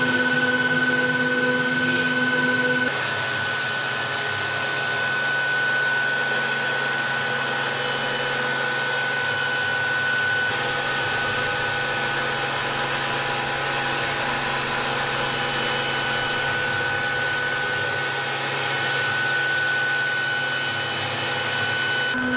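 CNC router carving a wooden relief panel: the spindle runs with a steady machine whine and noise. The tone changes abruptly about three seconds in and changes back near the end.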